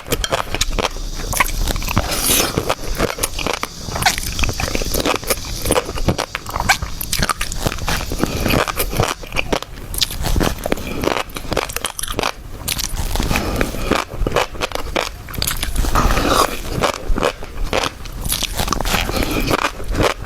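Close-miked chewing and biting of shrimp topped with fish roe, a dense run of small crackling clicks.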